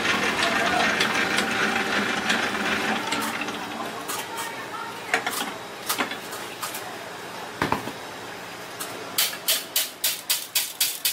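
Commercial planetary stand mixer whipping a stainless bowl of white foam; its steady running noise fades out about four seconds in. Then come a few scattered metal clanks and knocks as the bowl is handled, and near the end a quick run of sharp metallic taps, about four a second.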